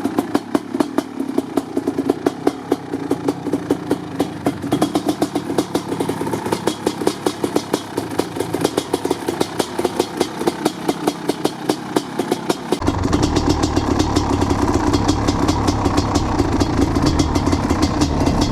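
1988 Kawasaki KX500's single-cylinder two-stroke engine idling while it warms up after a cold start, popping out through its expansion chamber and silencer at about five pulses a second. About two-thirds of the way through, the sound suddenly takes on a deeper rumble and gets a little louder.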